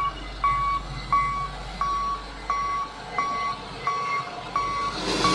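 A forklift's warning beeper sounding a steady train of short, even beeps, about three every two seconds, over the low hum of its engine. A hiss swells near the end.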